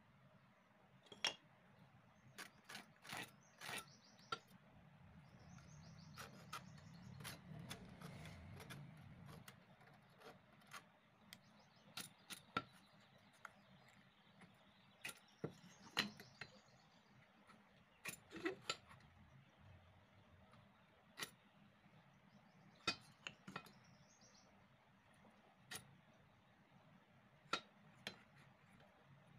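Near-quiet room tone broken by irregular sharp taps and clicks as a steel try square and small teak strips are handled and set down on a tile floor during pencil marking. A faint low rumble swells and fades about six to nine seconds in.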